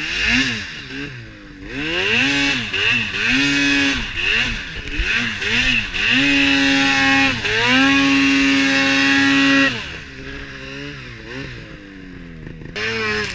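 Arctic Cat M8000 Mountain Cat snowmobile's two-stroke twin engine revving up and down in quick throttle blips. About six seconds in it is held at high revs for several seconds, with one short dip, then drops back to lower revs and picks up again near the end.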